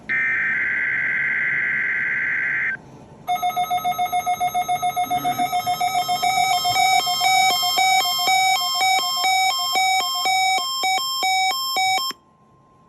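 Weather radio weekly test signal: a screeching burst of SAME digital header data for about three seconds, then after a short gap a loud electronic alarm pulsing rapidly on several pitches, which cuts off suddenly near the end.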